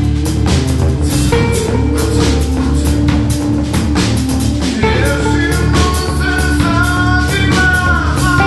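A rock band playing live: a drum kit and an amplified balalaika-style string instrument. From about five seconds in, a voice sings into a microphone over them.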